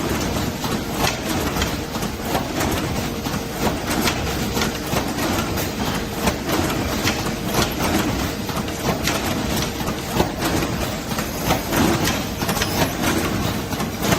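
Automatic carton packing machine (cartoner) running: a steady mechanical clatter of many quick clicks and knocks over a continuous machine noise.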